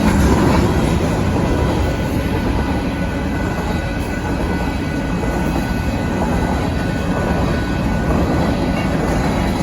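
Freight cars of a BNSF grain train rolling past at close range: a steady rumble of steel wheels on rail, with a few faint thin high whines from the wheels.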